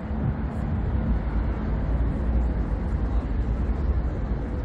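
Wind buffeting the microphone: a steady, uneven low rumble over open-air harbourside ambience.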